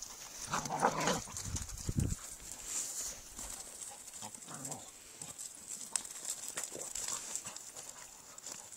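Dogs play-fighting, growling: a longer growl from about half a second to two seconds in, then a few short, quieter growls, with light scuffling clicks in between.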